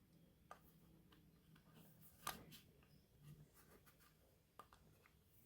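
Near silence with faint small clicks and light rubbing as hands handle the wires and parts of an electric frying pan cord's thermostat plug; the sharpest click comes a little past two seconds in.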